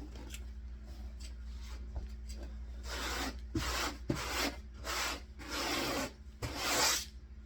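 A hand sweeping across a tabletop in a series of rubbing strokes, about six in quick succession starting about three seconds in, with a few light clicks among them.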